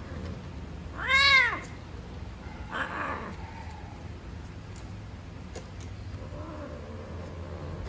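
Cats mating, with a cat yowling: one loud, drawn-out call that rises and then falls in pitch about a second in. A shorter, rougher cry follows near the three-second mark, and a faint low call comes later.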